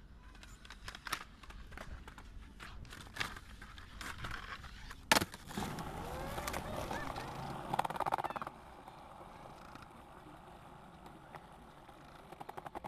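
Skateboard sounds: scattered clacks of the board and one sharp crack about five seconds in. Wheels roll over pavement, and a fast run of clicks comes near the end.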